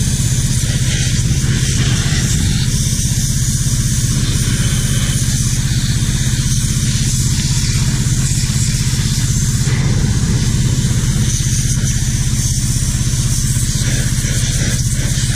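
Pressure washer running steadily with its spray valve shut off, a constant, even machine hum.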